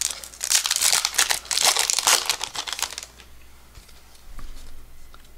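Wrapper of a 1992 Pinnacle baseball card pack being torn and crinkled open by hand. The crackling stops about three seconds in, leaving faint handling noise.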